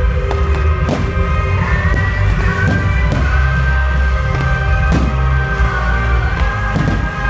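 Music with a heavy bass and sustained instrument tones over a steady drum beat.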